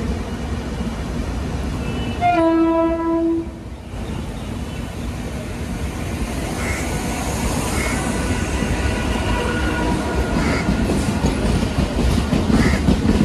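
LHB passenger coaches rolling past at speed, wheels knocking over rail joints with a clickety-clack. About two seconds in, a train horn blows one steady note for about a second, the loudest sound here.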